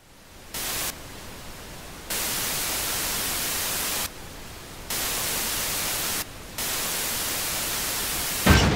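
Old CRT television static, a steady hiss that jumps between loud and softer stretches several times, then a heavy thump near the end as a hand smacks the side of the set.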